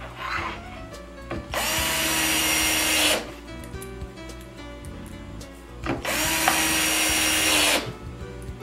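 Cordless drill driving screws into a cabinet side panel in two runs of about a second and a half each, the motor spinning up at the start of each.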